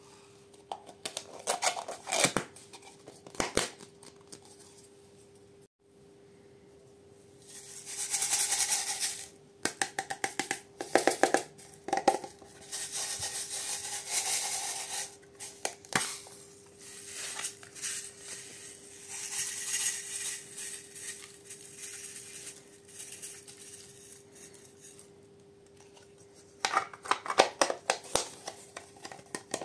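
Small plastic slime and clay containers being handled: a few sharp clicks and taps, then repeated stretches of crinkly rustling and plastic crackle as a soft clay tub is squeezed and worked open, with a faint steady hum underneath.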